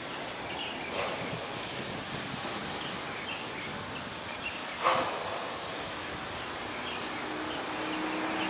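Outdoor street ambience: a steady background hiss with a few faint chirps, a light knock about a second in and a sharper, louder knock about five seconds in. A low steady hum comes up near the end.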